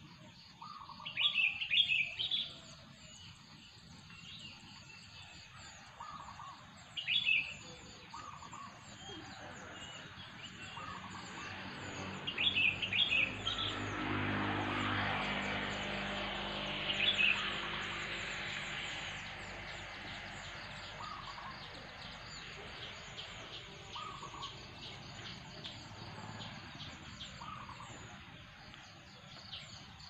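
Birds chirping in quick clusters of high notes every few seconds, with softer lower calls between, over a steady high-pitched chorus. In the middle, a broad swell of noise with a low hum rises and fades again.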